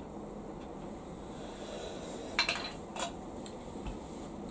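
Aluminium drink can set down on a hard surface: a sharp clink about two and a half seconds in and a lighter knock about half a second later, over a steady low room hiss.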